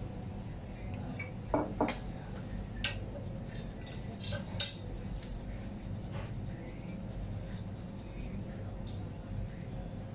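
Light metal clicks and clinks of sushi-counter utensils being handled, most of them in the first five seconds, over a steady low hum.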